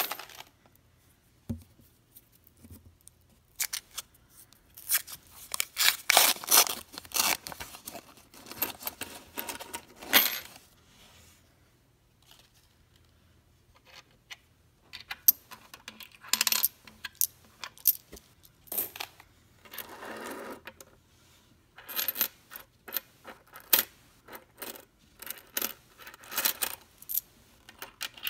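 Pennies (Lincoln cents) clinking against each other and a wooden tabletop as a roll is laid out and the coins are spread apart by hand. The clinks come in bursts of rapid taps, with a quiet gap of a few seconds near the middle.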